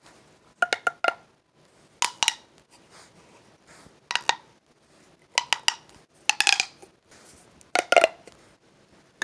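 Plastic fidget toys handled in about six short bursts of clicking and clinking, some with a brief ringing tone.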